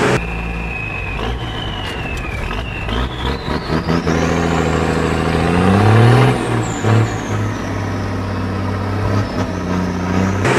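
Military 6x6 cargo truck's diesel engine, heard from inside the cab, running hard under load during a sled pull. The engine note climbs and then holds steady, while a high whine rises in pitch over several seconds and then falls away.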